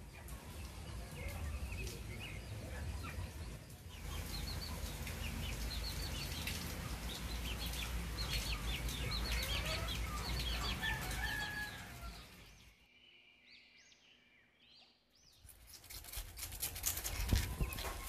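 Chickens clucking in a run of short, repeated calls over a low steady background. The sound drops out for a couple of seconds, then a knife starts scraping scales off a fish near the end.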